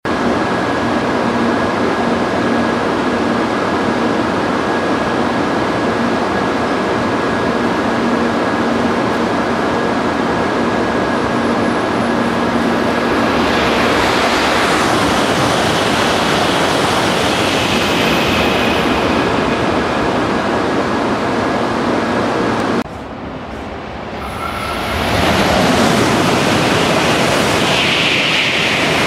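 Shinkansen bullet trains running through the station at high speed: a loud, steady rush of wheels and air with a faint high tone over it. About 23 s in it cuts off, then another train's rush builds quickly as it passes close by.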